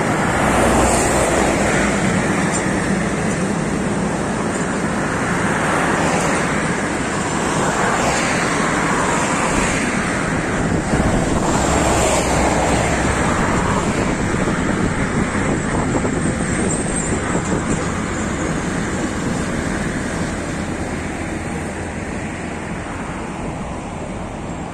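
Freight train of car-carrier wagons rolling across a concrete viaduct overhead: a steady loud rumble of wheels on rail that eases off over the last few seconds.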